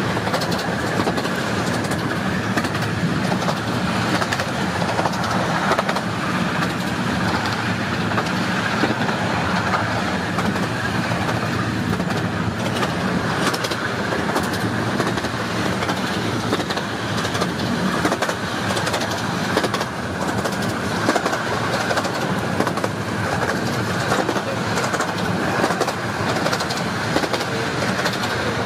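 A 15-inch-gauge miniature railway train running along the track, heard from aboard a carriage: a steady running noise with many small wheel-and-rail clicks.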